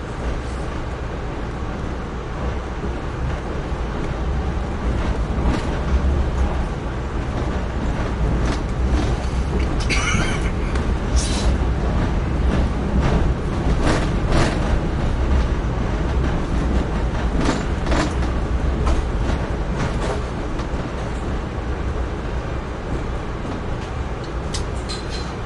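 Amtrak Northeast Regional passenger train rolling slowly into the station: a steady low rumble with scattered clicks and clanks of the wheels over rail joints and switches, and a brief high squeal about ten seconds in.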